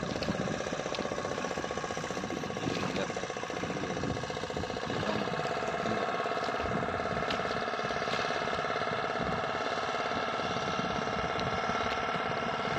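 Small boat's motor running at a steady drone, growing a little louder about five seconds in.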